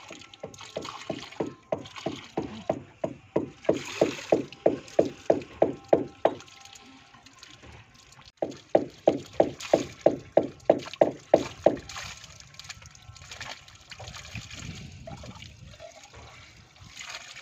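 Water poured from a bucket into a vertical PVC bore pipe, glugging in a quick even rhythm of about four glugs a second, in two runs with a short break between. The water is being poured in to flush the filter inside the bore.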